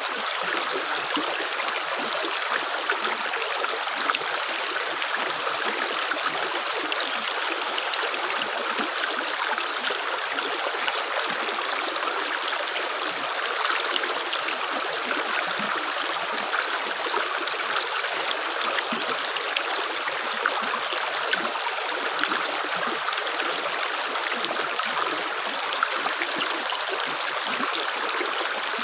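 Water running steadily in a small stream: an even, unbroken rush dotted with many tiny splashes.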